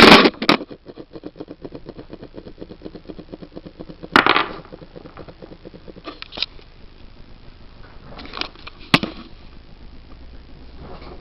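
Handheld video camera falling over and clattering: a loud jumble of knocks, then a fast, even ticking rattle for a few seconds. Scattered knocks, scrapes and a sharp click follow as it is moved.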